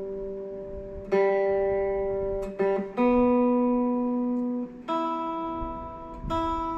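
Single strings of a Gretsch Streamliner Centerblock G2657T guitar plucked one at a time, a new string every second or two, each left to ring as the notes step up to the higher strings. The strings are being checked against a clip-on tuner after a roller bridge and locking tuners were fitted, and a couple sit just barely out of tune.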